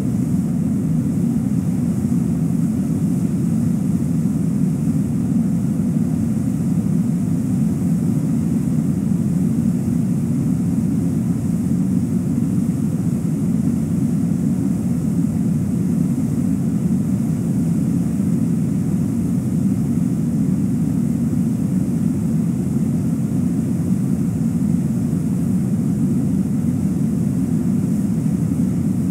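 River rapids rushing, a steady, even wash of whitewater that is deepest in pitch and never changes.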